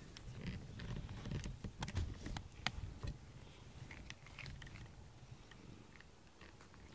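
Close handling noise: rustling and soft crackling of cat fur and cloth rubbing against the microphone as a hand pets the cat, with scattered clicks and low thumps, busiest about two to three seconds in.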